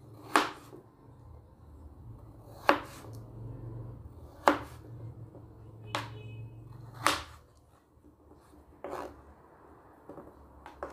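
Kitchen knife cutting peeled potatoes into chunks, each stroke ending in a sharp knock of the blade on the surface beneath. The knocks come every second or two and grow fainter near the end.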